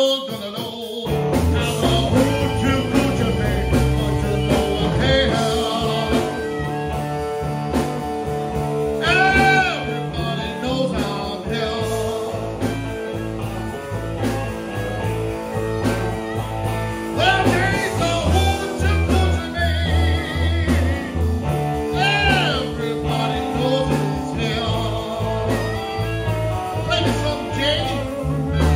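Amplified blues band playing an instrumental stretch: electric guitars, electric bass and harmonica, with bent lead notes over a steady bass line.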